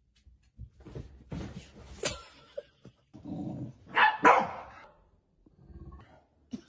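A dog barking, with two loud barks about four seconds in.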